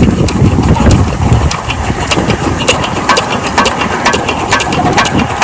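12 HP diesel engine of a farm water pump running, with sharp knocks about three a second. A heavy low rush of wind on the microphone covers the first second and a half.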